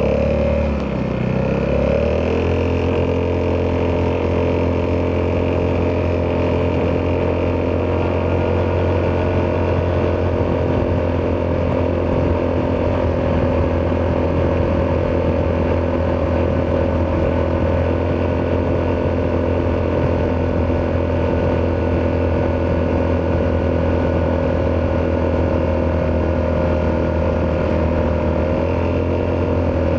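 Italjet Dragster 200's single-cylinder four-stroke engine running through an Akrapovic exhaust. Its pitch dips and rises over the first couple of seconds, then holds steady.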